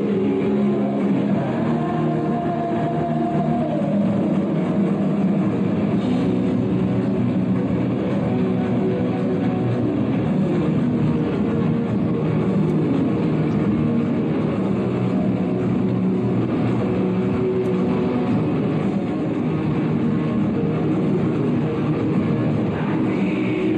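Heavy metal band playing live: a dense, steady wall of rock music with electric guitar, without a break.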